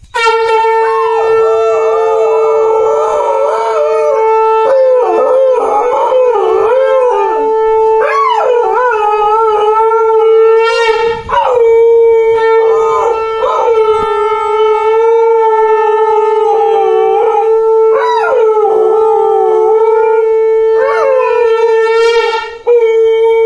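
Conch shell (shankh) blown in one long, steady note, broken off briefly about halfway through, while a dog howls along with it, its howls wavering up and down over the note again and again.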